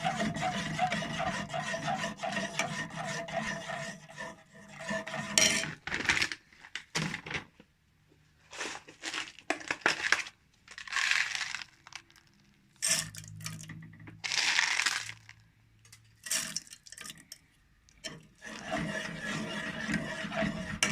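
Spoon stirring and scraping around a saucepan of thickening chocolate sauce. The scraping is continuous for the first few seconds, then comes as separate scrapes and clinks against the pot.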